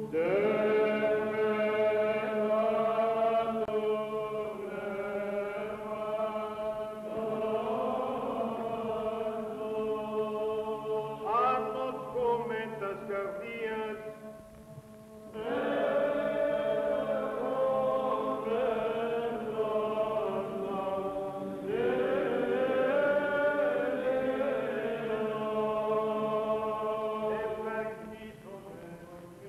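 Male monastic choir singing Byzantine chant: slow melismatic phrases over a steady held drone note (the ison), with a short break about halfway through and the singing dropping away near the end.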